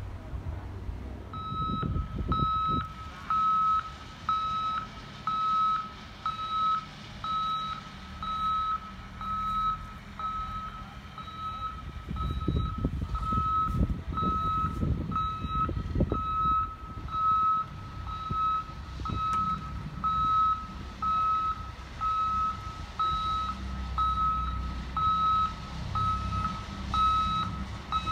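Dump truck's reverse alarm beeping in a steady high-pitched rhythm, about one and a half beeps a second, as the truck backs up. Underneath is diesel engine rumble that grows louder for a few seconds around the middle.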